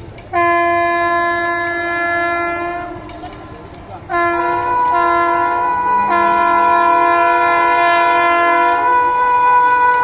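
Chhattisgarh Sampark Kranti Express's electric locomotive sounding its multi-tone horn: one long blast of about three seconds, then after a short gap a second blast from about four seconds in, held with brief dips to the end and growing slightly louder as the train approaches. It is warning trespassers crossing the tracks ahead of it.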